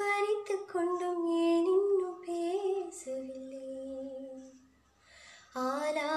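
A woman singing solo and unaccompanied, holding notes and gliding between them, stopping for about a second shortly before the end and then coming back in.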